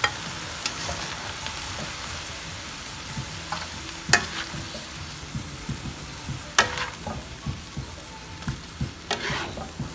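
Vegetables sizzling in a frying pan while a spatula stirs and scoops them out. A few sharp clacks of the spatula against the pan stand out, the loudest about four and six and a half seconds in.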